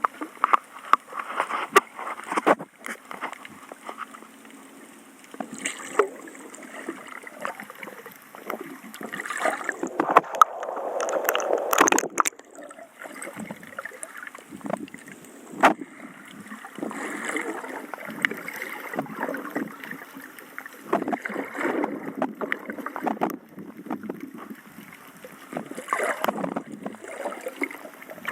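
Seawater sloshing and gurgling right against the microphone, rising and falling irregularly, with scattered sharp clicks and knocks.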